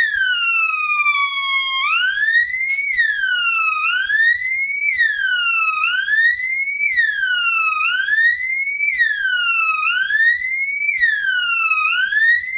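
Homemade dual 555 timer police siren circuit sounding: a loud, high electronic tone with a buzzy edge that sweeps up and down, about one rise and fall every two seconds, after a slow first fall.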